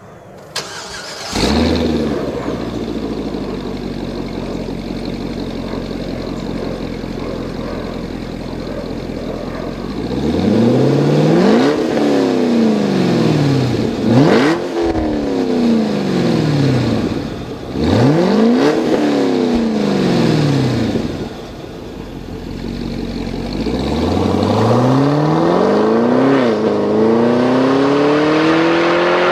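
Supercharged 6.2-litre V8 of a Cadillac CTS-V Wagon through a Corsa Sport axle-back exhaust with dual rear exits. It starts with a brief flare about a second in and settles to a deep, steady idle. It is then revved up and down three times and drops back to idle. Near the end it accelerates away, with one gear change.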